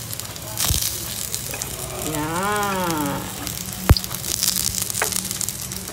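Pancake batter frying and sizzling in oil in a nonstick pan, with a metal spatula clicking against the pan, sharpest just before four seconds in. A person's drawn-out hum of approval rises and falls at about two seconds in.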